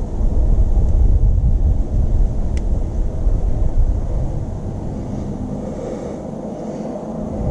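Used engine oil pouring from the drain hole of a Hyundai Tucson's 1.6-litre turbo engine into a catch pan, a steady low rumble that eases off about five seconds in.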